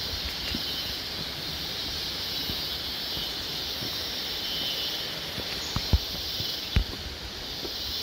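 Steady high-pitched insect chorus of a tropical forest, with two sharp knocks about six and seven seconds in.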